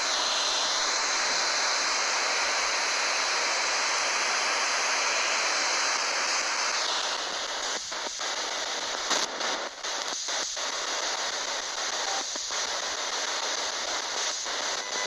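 Spirit box radio scanning the FM band: a loud, steady hiss of static with a faint steady tone in it that drops in pitch about halfway through. Short breaks in the static come every second or so in the second half as it sweeps.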